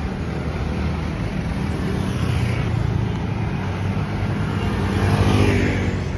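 Road traffic passing close by on a bridge roadway. One vehicle goes by about two seconds in, and a louder one with an engine hum passes near the end.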